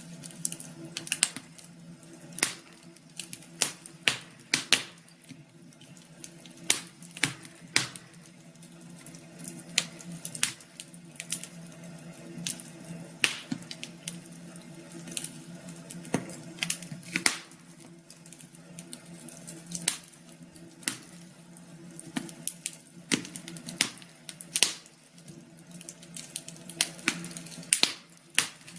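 Wood fire crackling: irregular sharp pops and snaps, sometimes several in quick succession, over a low steady hum.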